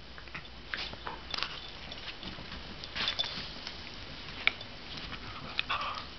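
Two dogs play-wrestling in a fleece pet bed: soft scuffling and rustling of the bedding with small scattered clicks, and a brief high squeak about four and a half seconds in.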